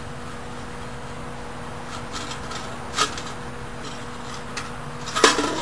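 Tin cans of a homemade coal riser and coffee-can grill knocking and rubbing as they are handled, with a single knock about three seconds in and a sharp clatter near the end, over a steady low hum.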